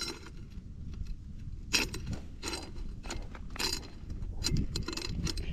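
Roller chain of a Coleman CT100U minibike clicking and rattling over the rear sprocket as the rear wheel is turned by hand to work the fallen-off chain back on. The clicks come irregularly, roughly every half second.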